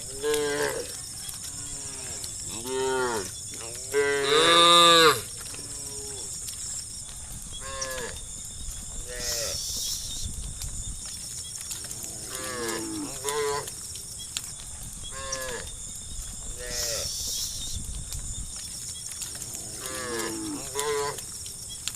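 Herd of cattle mooing, about a dozen separate moos from different animals one after another, the loudest and longest about four seconds in. A steady high-pitched hiss runs beneath.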